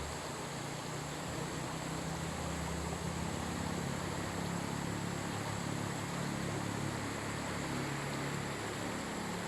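River water rushing and flowing in a steady, unbroken wash, with a low hum underneath.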